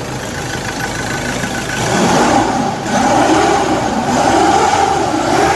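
2016 Ford Everest's 2.2-litre four-cylinder turbodiesel engine running after its no-crank, no-start fault was fixed. About two seconds in, the revs start to rise and fall.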